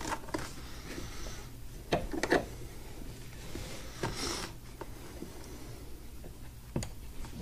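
Scattered clicks and knocks of hands working the pin, chain and metal hardware of an outboard motor mount on a plastic boat transom, loudest as a double knock about two seconds in, with a short rustle around four seconds.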